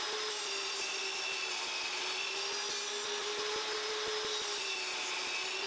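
Benchtop table saw running at a steady pitch while its blade cuts a short wooden offcut.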